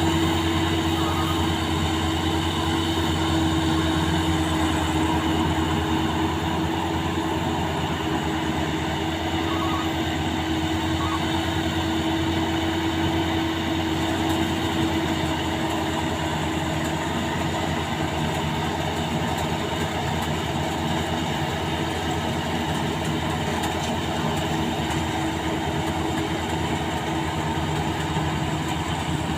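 Maxxi Bimo 102 combine harvester running steadily: a constant engine drone with a steady high whine over it.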